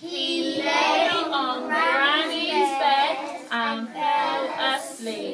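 A group of young children singing together in unison, a whole class's voices blending into one sung line with a few short breaks.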